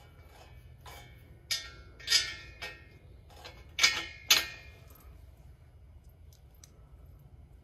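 Loose steel bolts, washers and nuts clinking against a steel exhaust flange as they are fitted by hand. About five sharp metallic clinks, each with a short ring, come in the first half, then only faint ticks.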